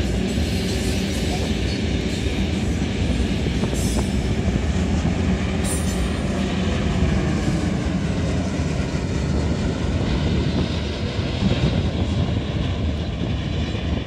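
Long diesel-hauled freight train's ore wagons rolling past on the rails: a steady, loud rumble of wheels on track.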